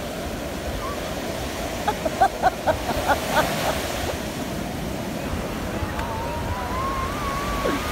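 Sea surf breaking and washing in shallow water, a steady rushing noise. About two seconds in comes a quick run of short high voice bursts, and near the end a long, wavering high-pitched call.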